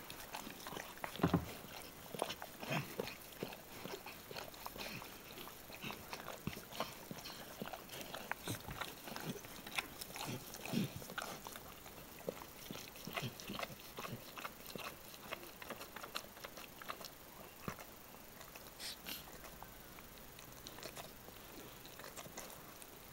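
A mother dog licking her newborn puppy: soft, wet licking and smacking in short, irregular clicks.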